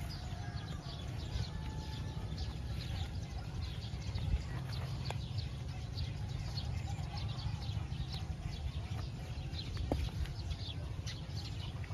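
Small birds chirping in a steady chorus of many short, quick, downward-sliding chirps, over a low steady rumble.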